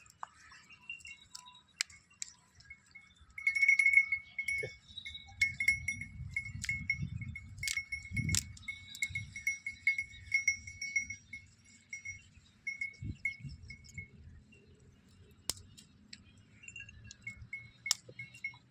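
A small metal bell on a farm animal clinking over and over in quick, uneven strokes as the animal moves, over a low rumble of movement. The bell falls quiet about two-thirds of the way through.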